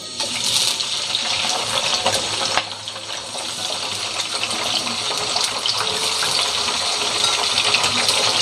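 Frozen potato fries, dropped straight from the freezer into hot oil, set off sudden, loud sizzling and crackling with scattered pops as the frozen surface water boils off. The sound dips briefly about two and a half seconds in, then settles into a steady, vigorous bubbling hiss that slowly grows.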